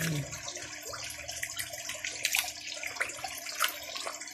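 Water running and splashing steadily into a fish pond, with a few sharper splashes every second or so.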